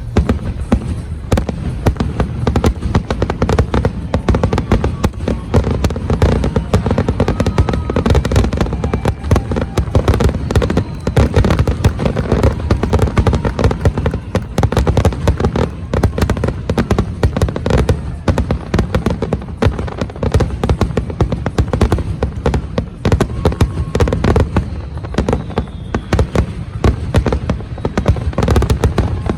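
Dense, rapid barrage of aerial fireworks bursting, with deep booms and crackling overlapping without a break.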